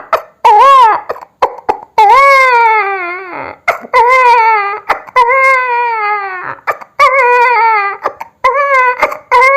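A man imitating a newborn baby crying with his voice: a string of wails, some short and some drawn out for a second or more, each rising then sliding down in pitch, broken by quick gasps for breath.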